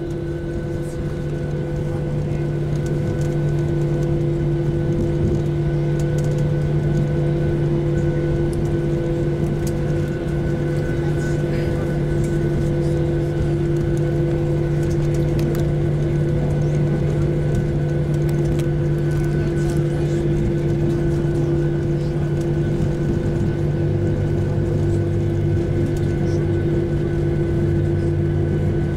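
Cabin sound of a Boeing 737-800 with its CFM56-7B engines running while the jet taxis: a steady hum of several held tones over a constant rumble, growing slightly louder in the first few seconds, with a deeper tone joining near the end.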